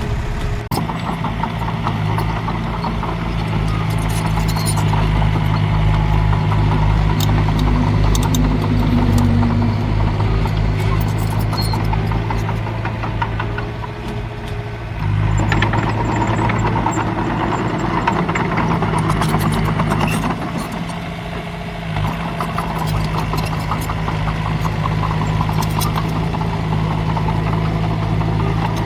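Heavy diesel engine of earthmoving machinery running steadily, with faint rattling and clanking. It eases off briefly about halfway through, picks up again, and dips once more a few seconds later.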